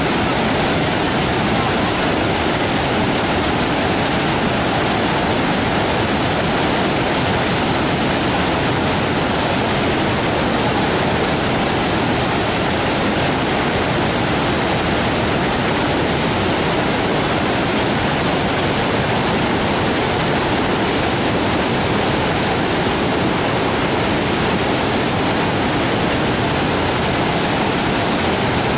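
Waterfall on a river: a steady, loud rush of falling and churning water, unchanging throughout.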